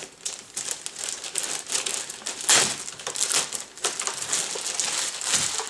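Thin clear plastic bag crinkling and rustling as a keyboard is worked out of it by hand, with irregular crackles, loudest about two and a half seconds in.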